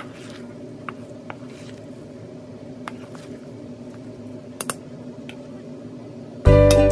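A spoon mashing and stirring a soft potato, egg and broccoli mixture in a stainless steel bowl, with a few light clinks of the spoon against the bowl, over a steady low hum. Cheerful music comes in near the end.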